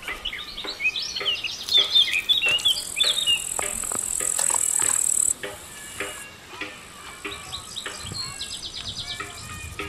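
Birds chirping over an insect's high, steady buzz; the buzz is loudest from about two and a half to five seconds in, then fades until it stops near the end, with scattered light clicks throughout.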